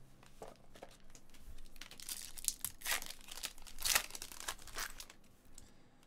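Trading card packaging being torn open and crinkled by hand, a run of dry crackling and tearing bursts that is densest about two to five seconds in.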